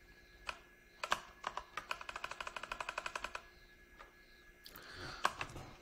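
Computer keyboard keys clicking: a few single taps, then a quick even run of about a dozen taps on one key, as when stepping the cursor back along a line of text.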